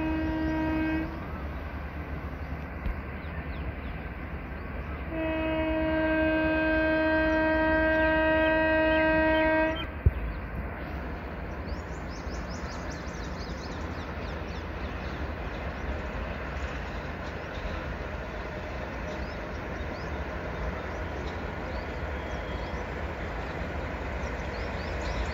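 Indian Railways LHB passenger coaches running past on the track, with a train horn: one short blast, then a long blast of about four and a half seconds. As the horn stops there is a single sharp knock, then the steady rolling noise of the coach wheels on the rails with scattered light clicks.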